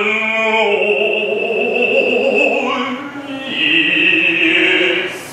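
Noh chanting (utai): voices holding long, drawn-out notes that bend slowly in pitch, with a short break for breath about three seconds in.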